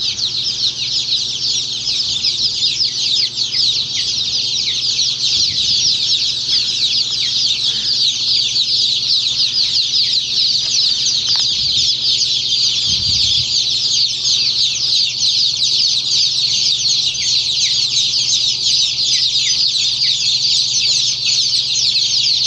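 Hundreds of day-old chicks peeping all at once: a dense, continuous, high-pitched chorus of short falling cheeps.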